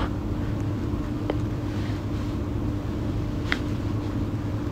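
Steady low background hum of a closed room, with a faint click a little over a second in and another about three and a half seconds in.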